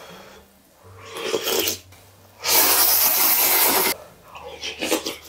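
A person slurping spicy ramen noodles and soup from a wooden ladle: a shorter slurp about a second in, then one loud slurp lasting about a second and a half that stops abruptly. Softer mouth noises follow near the end.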